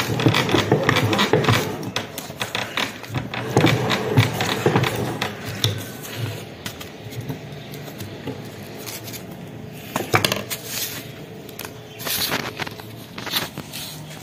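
Ring chips crackling and crunching as they go through a hand meat grinder for the first five seconds or so, then sparser scraping and clinking as the ground crumbs are pushed about a plate and the grinder's metal parts are handled, with a few sharper clicks near the end.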